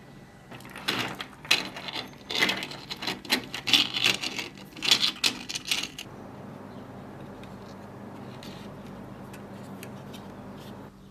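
Rapid, irregular clicking and rattling, like small hard pieces clattering, for about five seconds, then it stops and a steady hum carries on.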